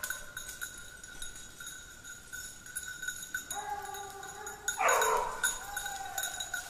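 Petits bassets griffons vendéens baying in the distance: a drawn-out howling bay about three and a half seconds in, a louder, rougher bay around five seconds, then another howl. Hunting hounds giving tongue while running a line.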